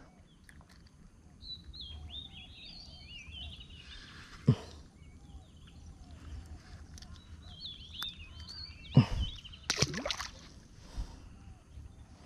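Small birds chirping in quick repeated calls, in two spells, over a quiet outdoor background, with a few short knocks and rustles of handling; the loudest come about nine and ten seconds in.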